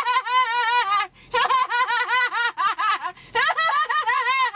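A woman's deliberately creepy fake laugh: quick runs of high-pitched, sing-song "ha" syllables in three stretches, with brief breaths about a second and about three seconds in.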